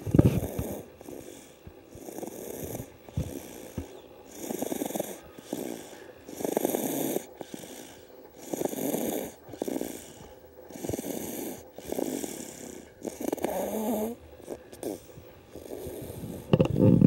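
Snoring: a sleeper's snores come in a steady rhythm, about one every two seconds.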